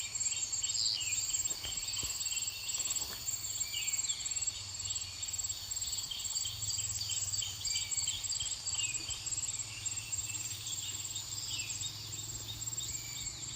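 Field insects trilling steadily with a high, pulsing note, overlaid by many short chirps repeating throughout.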